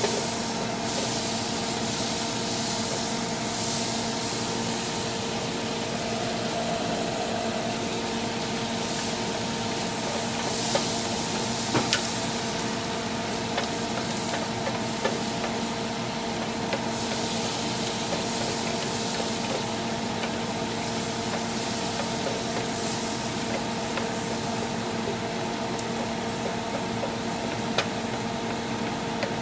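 Butter and garlic cloves sizzling in a nonstick grill pan while a wooden spatula stirs them, with occasional sharp clacks of the spatula against the pan, a few close together about twelve seconds in and one near the end. A steady hum runs underneath.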